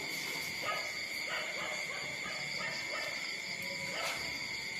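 Young puppies, about 18 days old, making short squeaks and whimpers as they nurse from their mother, over a steady high-pitched background tone.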